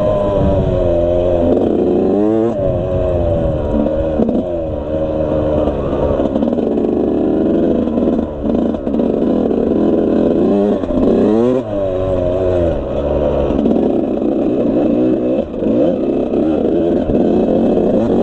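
Suzuki RM85 single-cylinder two-stroke dirt bike engine being ridden hard. The revs climb and drop off again and again, every second or two, as the throttle is worked and gears change.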